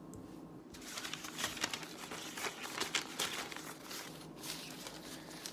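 Sheets of paper rustling and crinkling as they are handled. The rustles come as quick, irregular crackles starting just under a second in.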